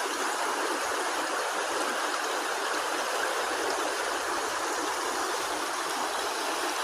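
Flowing river water rushing steadily over its bed, a continuous even rush.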